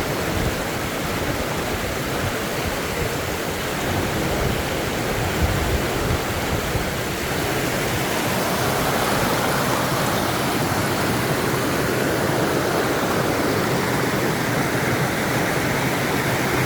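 Waterfall: a steady rush of falling water that cuts off abruptly at the end.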